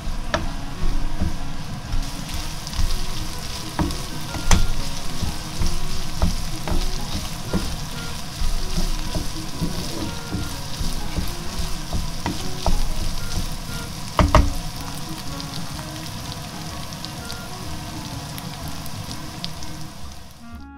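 Minced pork and green onion sizzling in a frying pan while a wooden spatula stirs and scrapes through it, with scattered knocks of the spatula against the pan; the loudest come about four seconds in and again about fourteen seconds in. The sizzle eases off over the last few seconds.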